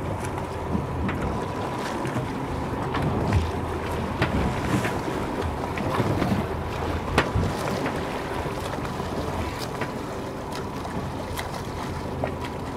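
Escort boat under way at sea: a steady low engine hum beneath wind on the microphone and the wash of the waves, with scattered knocks now and then.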